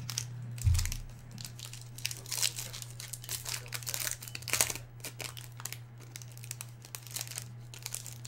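Foil wrapper of a Topps Strata baseball card pack being torn open and crinkled by hand, with irregular crackling throughout. A single low thump comes just under a second in, and a steady low hum runs underneath.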